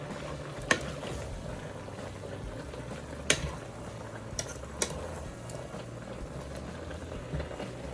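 Cabbage, pork belly and broth boiling in a pot on high heat, a steady low bubbling as the broth cooks down. A few sharp knocks, as of a utensil against the pot, cut through it.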